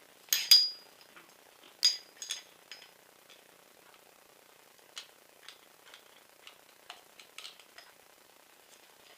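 A long steel screwdriver clinking and tapping against the metal buffer tube and receiver of an airsoft M4 as it is fed in and set on the buffer-tube screw. There are two sharp, ringing clinks within the first two seconds, then lighter scattered clicks.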